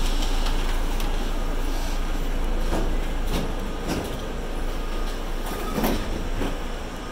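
Interior of an R32 New York City subway car in motion: a steady rumble of wheels and running gear, with a few knocks as the wheels pass over rail joints, the loudest about six seconds in.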